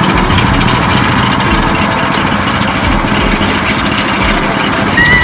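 A loud engine running steadily at idle with an even low throb.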